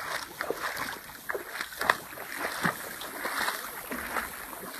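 Tall grass swishing and crackling as people walk through it, with irregular brushes and rustles and a few sharper crackles.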